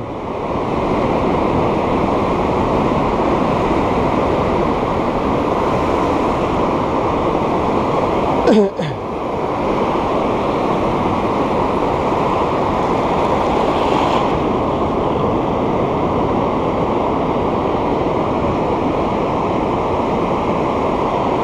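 Ocean surf breaking and washing up the beach in a steady, dense rush, briefly broken about eight seconds in.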